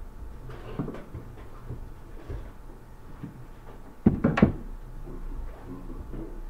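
A quick clatter of three or four knocks about four seconds in, over faint room noise.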